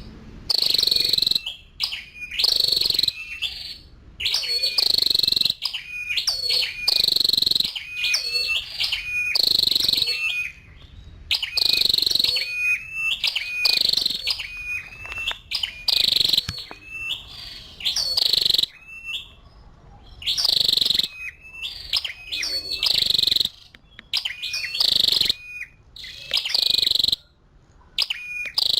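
Female red-headed flowerpecker (chim sâu đầu đỏ) calling: sharp, high chips in short bursts, one burst every second or two, repeated over and over.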